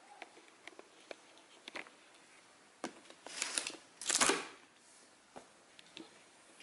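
Screw lid of a plastic whey protein tub being twisted off by hand. Scattered small clicks, with two short scraping bursts about three and a half and four seconds in, the second one louder.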